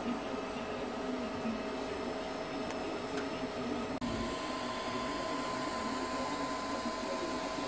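DIY 3D printer running a vase print: stepper motors whining at several steady pitches over the even hiss of its cooling fans. About four seconds in the sound drops out for an instant and comes back with an added higher steady tone.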